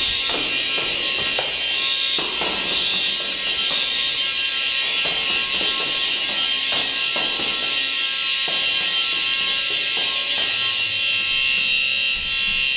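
Gentex SHG fire alarm horn sounding continuously, a steady, high buzzing tone that does not let up. A few irregular knocks sound over it.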